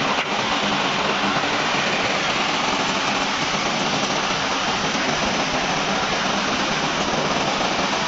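Steady rushing hiss of the steam plant, with a faint low hum beneath it, unbroken throughout.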